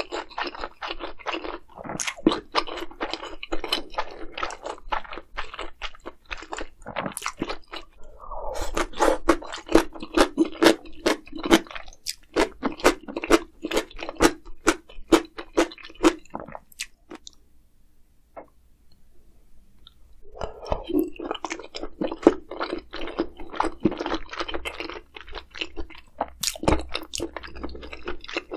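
A person chewing and crunching food close to the microphone, with rapid irregular mouth clicks. The chewing stops for about three seconds past the middle, then starts again.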